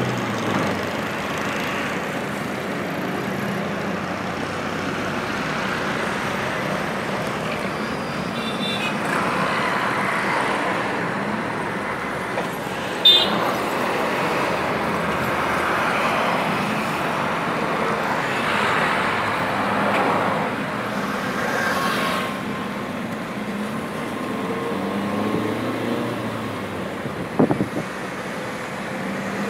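Road traffic heard from a moving vehicle: a steady wash of engine and tyre noise with other traffic passing close by. A couple of short sharp sounds stand out, one about halfway through and a cluster near the end.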